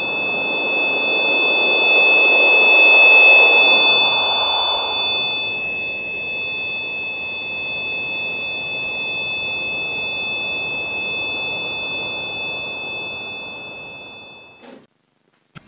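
Loud electronic drone: a steady, high-pitched buzzing tone of two pitches held together, over a rushing noise that swells to a peak a few seconds in and then eases. It fades and cuts off near the end.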